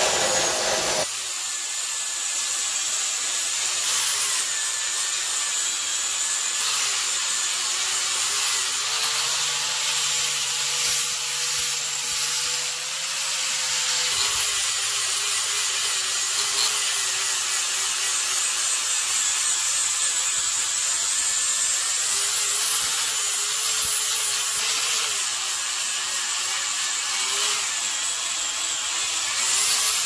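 Electric angle grinder grinding a steel plate: a steady grinding hiss over the motor's hum, the hum dropping slightly in pitch about halfway through. The first second is the end of a cut from an abrasive chop saw on steel.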